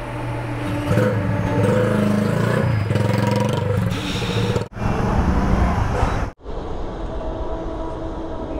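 Petrol-pump forecourt machinery and vehicle engines: a steady motor hum that grows louder and shifts in pitch for a few seconds, then is broken off sharply twice and goes on quieter.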